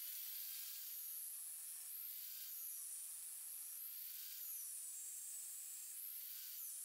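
Angle grinder fitted with a toothed saw disc cutting into a wooden blank as it spins on a lathe. Its high whine sags in pitch and recovers every second or two as the blade is fed into the wood.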